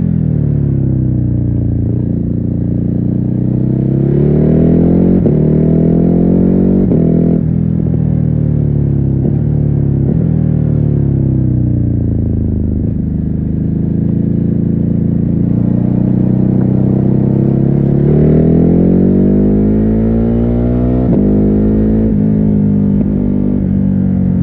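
Ducati Hypermotard 950's stock-exhaust L-twin engine under way: it revs up through the gears with quick upshifts, each a sudden drop in pitch, settles to a steady cruise in the middle, then pulls up through the gears again near the end. The sound is muffled, picked up by a phone wrapped in a scarf inside a backpack.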